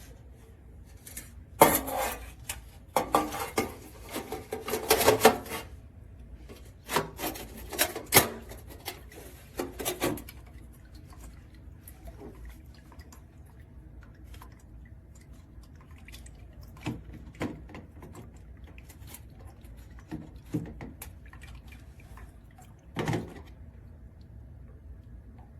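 A dog lapping water from a stainless steel drinking fountain in two quick runs of splashy laps early on, then a few scattered single laps or clinks later.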